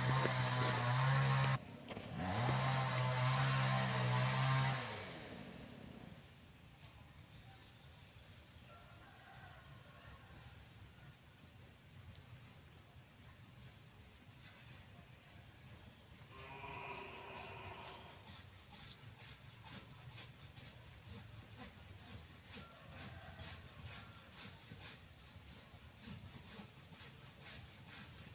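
Chainsaw running at speed up in the tree, cutting out for a moment, running again, then dropping in pitch and stopping about five seconds in. Quiet outdoor surroundings follow, with faint regular high chirps and a short animal call about two-thirds of the way through.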